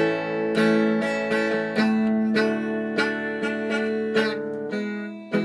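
Stratocaster-style electric guitar strummed in open chords (A, D and E), a fresh strum about every half second, played by a beginner practising chord changes; the chord changes near the end.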